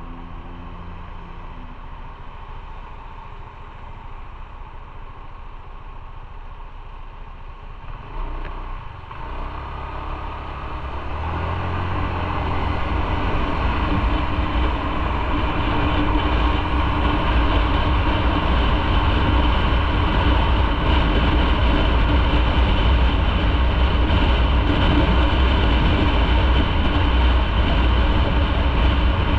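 Motorcycle engine running low and steady, then the bike pulls away about eight seconds in and speeds up over several seconds to a steady cruise, its engine joined by a rising rush of wind noise.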